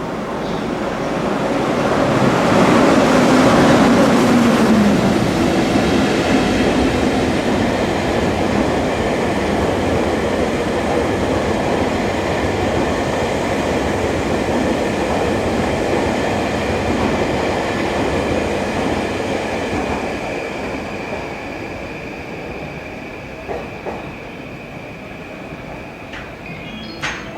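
EF210 electric locomotive passing at speed, hauling a train of unpowered Tobu 500 series cars. The rail noise peaks a few seconds in, with a falling hum as the locomotive goes by. The cars' wheels then keep rolling over the rails in a long steady rumble, with some high wheel squeal, and it fades away over the last several seconds.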